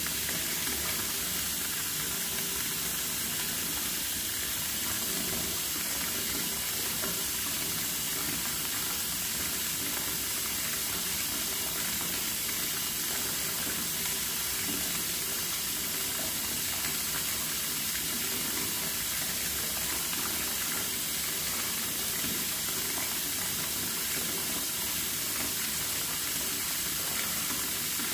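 A steady, even hiss, strongest in the high frequencies, that does not change.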